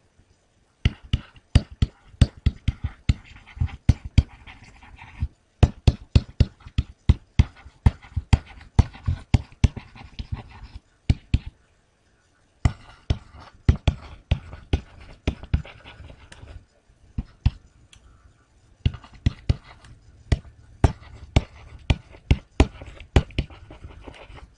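A stylus tapping and scratching on a writing surface during handwriting: sharp taps, a few a second, in runs broken by short pauses.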